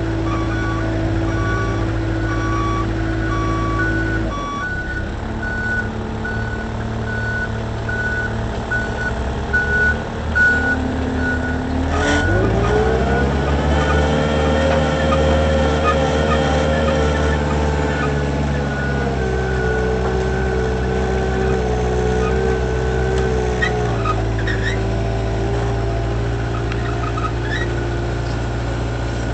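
Moffett truck-mounted forklift's diesel engine running, with a reversing alarm beeping in the first few seconds. About twelve seconds in the engine revs up and holds higher for several seconds, then drops back to a steady run.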